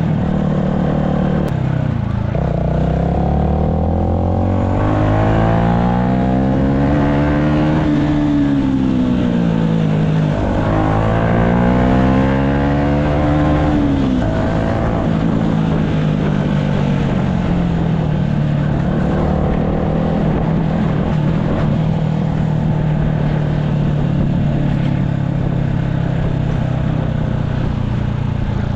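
Yamaha MT-125's single-cylinder four-stroke engine running under way: the engine note rises, falls back, rises again, then holds steady through the second half.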